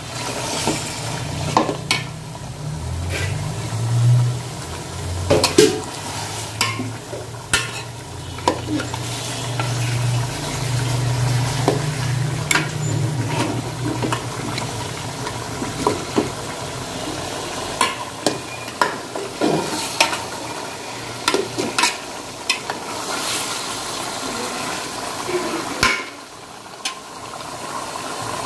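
Beef chunks in spice paste frying and sizzling in a metal pot while a metal spatula stirs them, with repeated clicks and knocks of the spatula against the pot.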